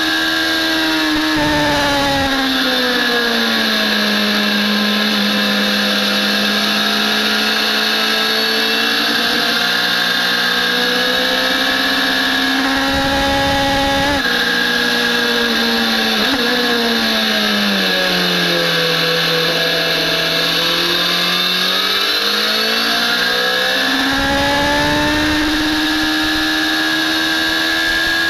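BMW S1000RR inline-four engine heard from on board at track speed. The note drops as the bike slows for corners and climbs again under acceleration, twice over, with a couple of brief breaks in the note partway through.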